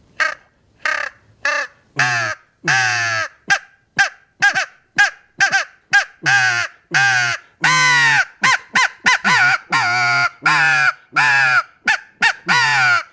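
A mouth-blown crow call with a walnut barrel and a hand-shaved molded soundboard, blown in a long run of about two dozen caws. Short clipped caws give way to longer drawn-out ones from about halfway through.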